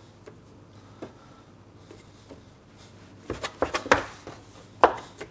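Steel bench scraper cutting dough and knocking on a wooden bench: a few light taps, then a quick run of sharp knocks about three seconds in and one more loud knock near the end.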